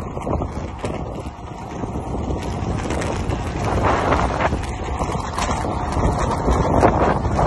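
Wind buffeting a handheld phone's microphone on a fast-moving road bike, a rushing noise that gusts louder and softer.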